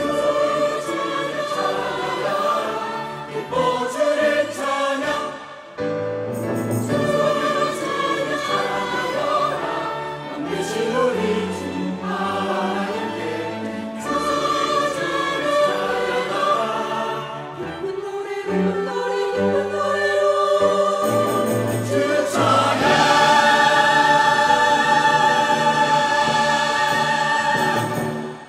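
Mixed church choir singing a Korean anthem in full voice, accompanied by an orchestra. About six seconds from the end it swells into one long, loud held chord, the closing chord of the piece, which cuts off at the end.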